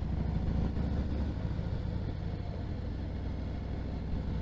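Motorcycle engine running at a steady low rumble while riding, mixed with wind buffeting on a helmet-mounted camera microphone outside an open-face helmet.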